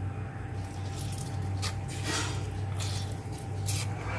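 Half a lemon squeezed by hand over a glass mixing bowl: a few soft squishes of the fruit and juice dripping into the marinade, over a steady low hum.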